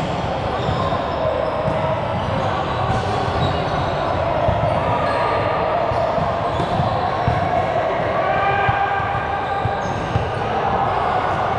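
Game sounds echoing in a large gym: overlapping voices of players and a few ball thumps on the court.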